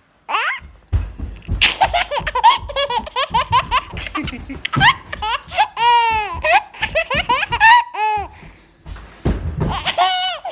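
A baby laughing hysterically: quick runs of belly laughs broken by long, high squealing laughs, a short pause about eight seconds in, then another burst of laughter near the end.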